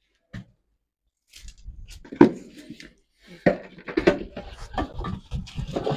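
Dried cow-dung fuel cakes being dropped and broken into a clay haara pot-hearth: irregular knocks, crumbling and scraping, with one sharp knock about two seconds in and denser knocking from the middle on.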